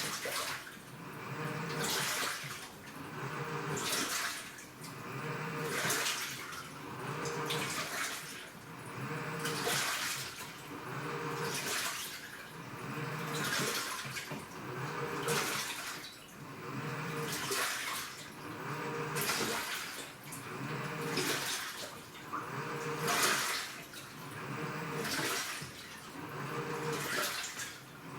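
Washing machine agitating in its wash cycle: water sloshes in a regular surge about every two seconds, each with a low motor hum as the drum or pulsator turns and reverses.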